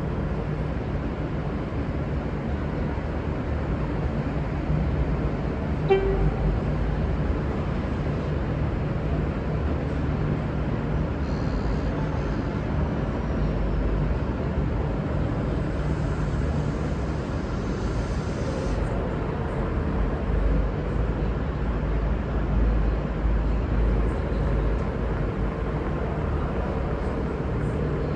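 V/Line Sprinter diesel railcars running with a steady low engine drone. About six seconds in there is a brief horn toot, and a hiss rides over the drone for several seconds in the middle.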